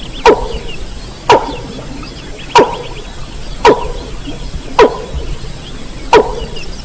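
Calls of a mandar (a rail) from a lure recording: one loud, sharp note that drops in pitch, repeated about once a second, six times over. Faint high chirping runs behind.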